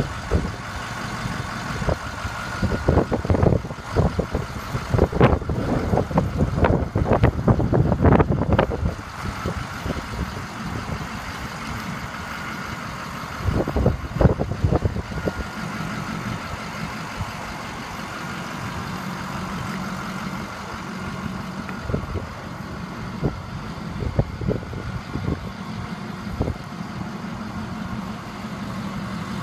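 Medium-duty diesel dump truck idling steadily, a low hum with a faint higher whine over it. Irregular bursts of noise break in, heaviest in the first nine seconds and again around fourteen seconds.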